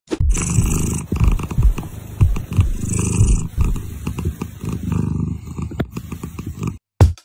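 Cat purring, a continuous low rumble that stops abruptly near the end.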